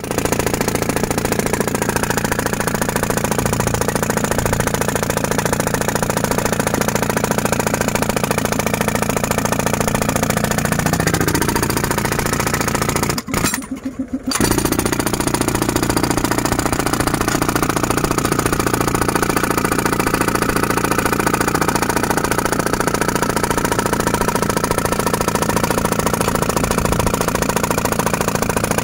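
Handheld pneumatic breaker (air jackhammer) hammering into hard red earth, a rapid continuous rattle of blows; it stops for about a second near the middle and then starts again.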